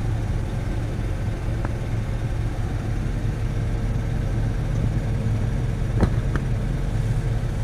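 Claas Axion tractor's diesel engine running steadily, heard from inside the cab, with a low hum and a steady whine over it. Two short knocks about six seconds in.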